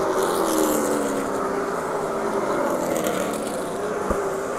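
Race car engines running on the track. One engine note falls steadily in pitch over the first two seconds while others drone on, and there is a single short knock about four seconds in.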